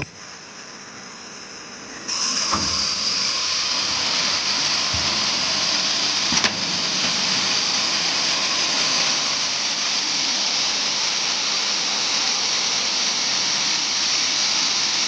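WG 612T ultrasonic wire welding machine giving off a steady hiss that switches on sharply about two seconds in and holds level, with a couple of faint knocks.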